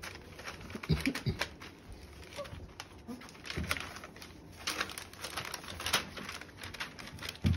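Five-week-old puppies moving about a whelping pen: small paws pattering and rustling over newspaper, with scattered sharp taps and a few short, low puppy grunts.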